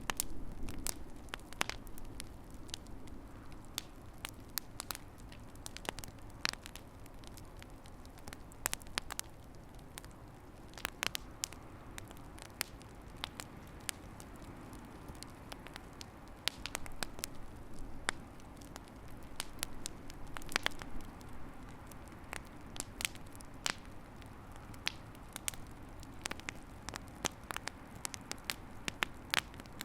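Fire in a fireplace crackling: irregular sharp pops and snaps over a low steady background of the burning fire.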